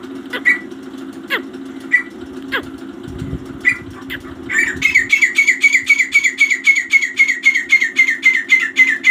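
Grey francolin calling: a few scattered sharp notes at first, then about halfway a loud, fast run of high whistling notes, about five a second, that keeps going. A steady low hum runs underneath.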